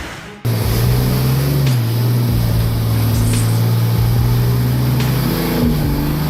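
A heavy vehicle's engine running under load with a steady low drone, cutting in abruptly about half a second in; its pitch shifts slightly twice.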